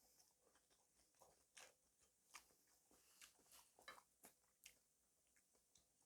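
Faint close-up eating sounds: chewing, with a string of irregular soft clicks and smacks, the loudest about four seconds in.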